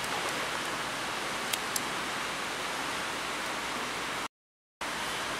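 Steady hiss of rain on a tin roof, with two faint clicks about a second and a half in. The sound cuts out completely for about half a second a little past four seconds in.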